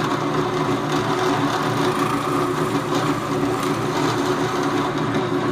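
Drill press motor running steadily with a 1/4-inch bit, boring holes through a wooden plate.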